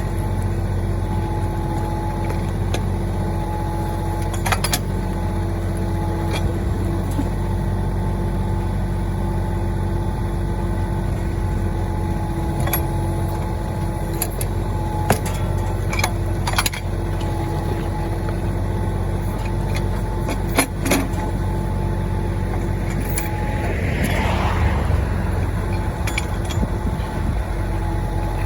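Mahindra 1626 compact tractor's diesel engine running steadily while its backhoe digs out a pine stump, with scattered sharp knocks and clanks of the backhoe at work.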